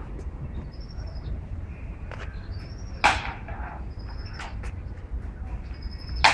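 Bird calls: a high, thin whistle repeated about every second and a half, with two loud, sharp calls, one about three seconds in and one near the end.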